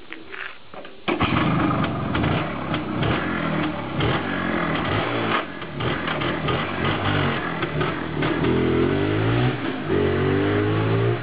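Motorcycle being kick-started, catching suddenly about a second in. It runs loud and uneven with sharp bangs while flames shoot out of its exhaust, then revs and pulls away, its pitch rising near the end.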